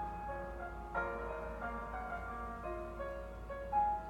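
Instrumental music from a slow ballad: piano playing held chords, with a new chord or note about every second and no singing.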